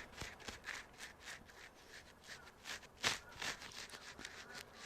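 Makeup brush applying a palette shade, with short, soft scratchy strokes and taps several times a second. One stroke about three seconds in is louder than the rest.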